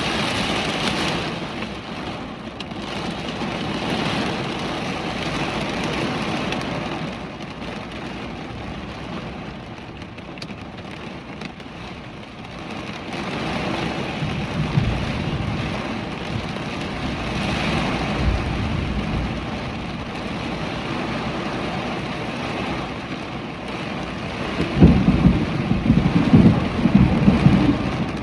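Hurricane rain and wind, a steady rushing downpour with low rumbling surges that grow strongest near the end.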